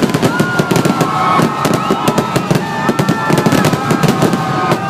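Fireworks grand finale: a dense, rapid barrage of bangs and crackles, with several high whistling tones held over it that fall slightly in pitch.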